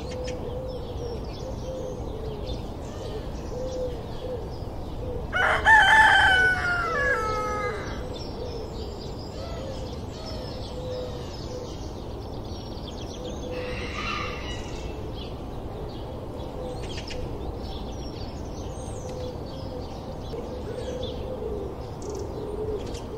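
Farmyard ambience: a rooster crows loudly once about five seconds in, with a fainter call around the middle, over scattered small bird chirps and a steady background hiss.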